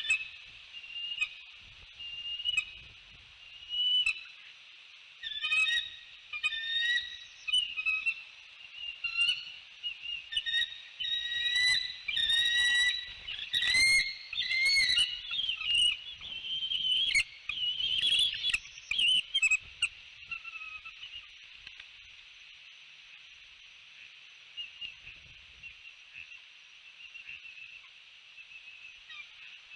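Bald eagles calling with high-pitched whistled chirps. Single calls come about every second at first, then run together into a quicker chattering series, loudest about halfway through, and die away about two-thirds of the way in.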